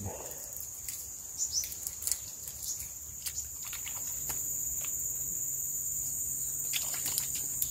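Steady, high-pitched chorus of insects, with a few scattered light clicks.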